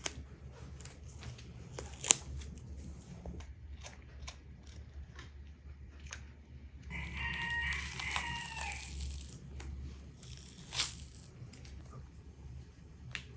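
A knife cutting and a thin membrane being pulled off a raw joint of meat on a wooden board, with scattered sharp clicks. About seven seconds in, a rooster crows once for about two seconds, the loudest sound here.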